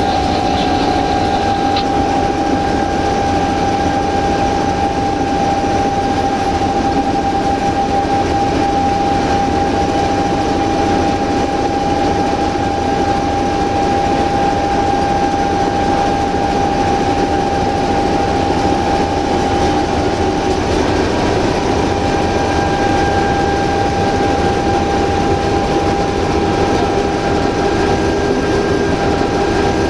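Cab of an LDH1250 diesel-hydraulic locomotive under way: steady, loud engine and running noise with a constant whine, which shifts slightly about twenty seconds in.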